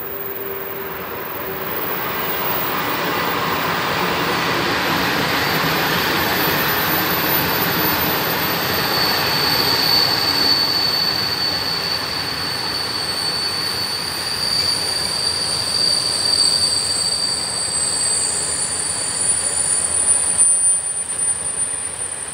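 Freight train hauled by an Sr1 electric locomotive rolling past, its long string of covered Gbls/Gbln wagons clattering over the rails. The rumble builds over the first few seconds and stays loud. A steady high wheel squeal runs through the middle, and thinner, higher squeals join near the end.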